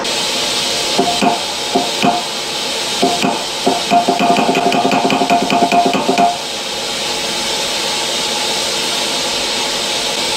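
Steam hissing steadily from a valve on a small model steam boiler. A quick run of metallic clicks and knocks comes from about three to six seconds in.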